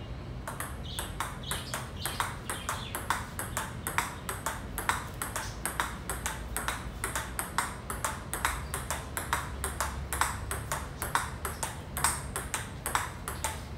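Table tennis forehand rally: the ball clicks sharply off the two paddles and bounces on the table in an even rhythm of about three to four clicks a second, starting about half a second in.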